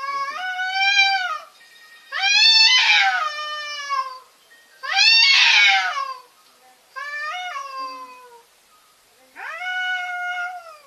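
Domestic cats yowling in a fight standoff: about five long, wavering calls, each one to two seconds, rising and falling in pitch, with short pauses between them.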